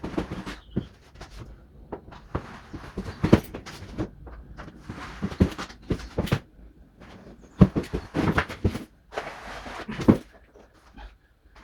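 Plastering trowel working Multifinish plaster: irregular scrapes and sharp knocks of steel on the hawk and the wall.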